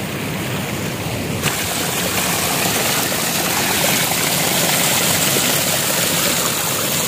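Water spilling through the dam's shutters and pouring down the face in a steady rushing noise, which grows louder and brighter about a second and a half in.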